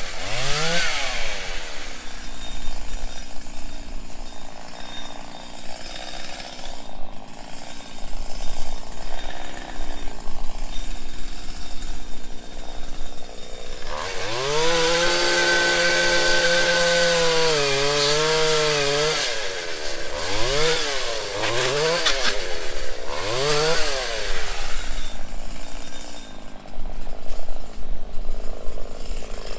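Two-stroke chainsaw running, revved in several short blips that rise in pitch and drop back. About halfway through it is held at high speed for roughly five seconds.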